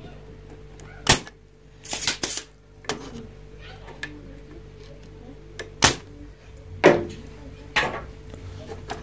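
Sharp clicks and taps of tools working on a CRT TV circuit board while a capacitor is desoldered and pulled out: about eight irregular clicks, a quick cluster of three about two seconds in, over a steady low hum.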